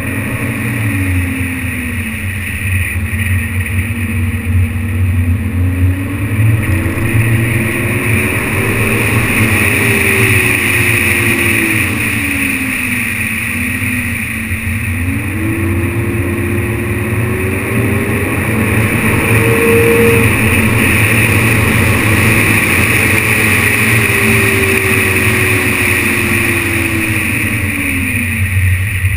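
BMW 530d's straight-six diesel engine pulling along a winding road over steady tyre and wind noise, its pitch rising as the car accelerates and falling as it eases off, several times over.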